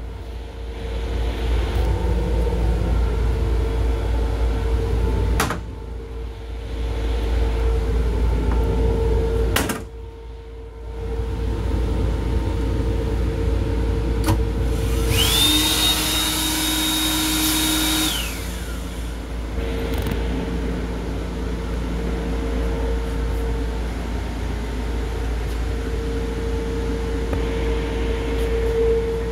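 Steady low rumble and hum inside an M7 electric railcar, with a few knocks. About halfway through, the restroom's hand dryer starts with a rising whine, blows for about three seconds, and winds down.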